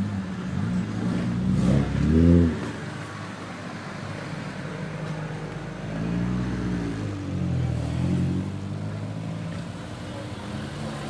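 Car engine being revved over a steady idle: one sharp blip that climbs and falls back about two seconds in, the loudest moment, then two softer blips around six and eight seconds.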